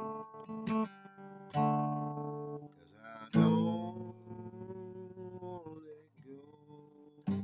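Acoustic guitar strummed, a few chords each struck and left to ring out; the longest rings for a couple of seconds in the middle, and another is struck near the end.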